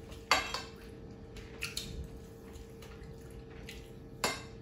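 Metal spoon clinking and scraping against a ceramic plate piled with rice: three sharp clinks, the loudest about a third of a second in, another at about a second and a half, and one near the end, over a faint steady hum.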